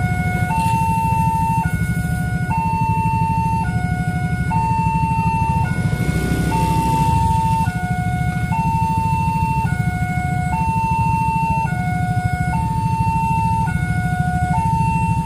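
Railway level-crossing warning siren sounding a two-tone high-low alarm, each tone held about a second, alternating steadily as the barriers stay down for an approaching train.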